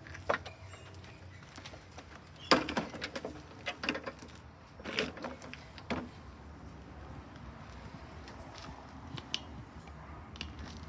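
A walk-behind petrol lawn mower being tipped back over onto its wheels on concrete: a sharp knock about two and a half seconds in, then a run of lighter knocks and rattles until about six seconds in.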